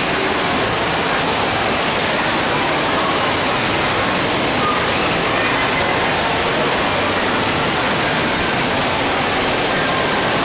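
Constant rushing water and hall din of an indoor water park, steady and unchanging, with faint voices in the mix.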